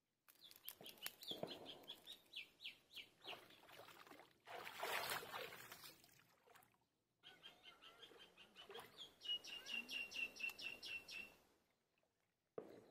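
A bird calling: a fast run of short, high chirps, about four or five a second, then a second, longer run a few seconds later. A brief burst of noise falls between the two runs.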